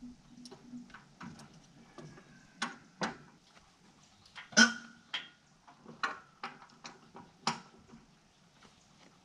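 Scattered metallic clanks and knocks from hands-on work at a boat trailer's wheel, several with a brief ring. The loudest clank comes about four and a half seconds in.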